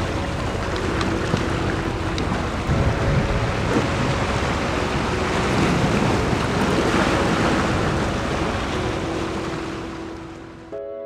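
Sea surf breaking and washing over rocks, with wind buffeting the microphone. It fades down near the end.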